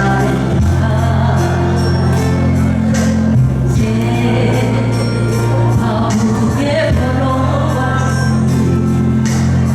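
Korean trot song performed to a backing track: steady held bass notes and chords, with a singer's voice over it.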